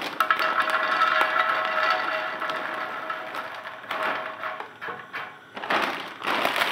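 Puffed lotus seeds (phool makhane) poured into an empty non-stick frying pan: a dense rattle of light pieces landing for about three seconds, with the pan ringing under it. Then a couple of short rustling clatters as a hand spreads them in the pan.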